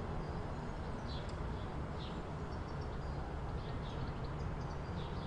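Outdoor city ambience: a steady low rumble of distant traffic, with short, high bird chirps scattered throughout.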